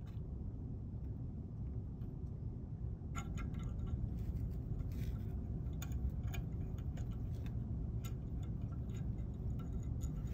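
Faint, irregular ticks and scratches of thin copper shear wire being wrapped by hand around the top contact of a guarded aircraft toggle switch, starting about three seconds in, over a low steady background hum.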